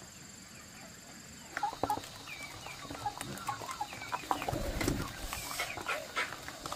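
Chickens clucking and chirping. From about a second and a half in, a spoon clicks, scrapes and squelches through wet pig-feed mash in a plastic basin.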